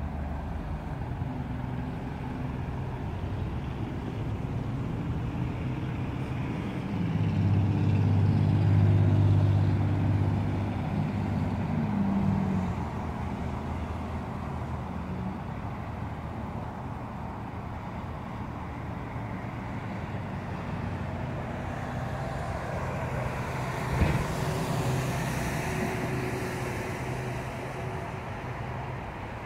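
Steady road traffic. A loud low engine hum passes about a quarter of the way through. Later a BMW E36 M3's straight-six passes by, swelling and fading, with a sharp click near its loudest point.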